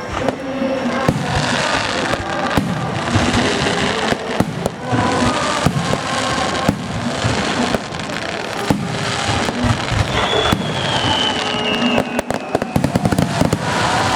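Aerial fireworks bursting in quick succession, with music playing alongside. A falling whistle comes about ten seconds in, then a rapid run of crackling near the end.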